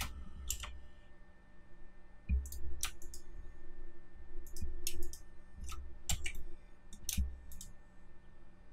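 Computer mouse clicks and keyboard key presses, scattered and irregular, a few with a dull knock beneath them, from working 3D modeling software with shortcuts.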